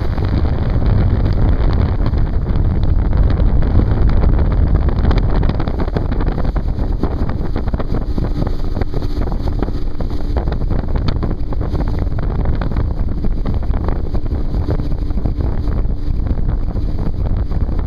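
19-foot Pro-Line fishing boat running at speed, about 38 mph: wind buffeting the microphone and water rushing past the hull over the steady drone of its engine.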